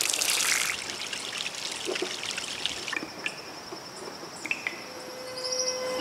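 Water pouring from a metal tap, loudest in the first second. An insect's steady high trill comes in about halfway, with a few short bird calls.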